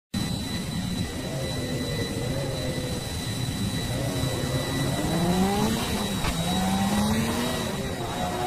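Engine-like rumble whose pitch glides up and down, like a vehicle revving, with a thin steady high whine over it.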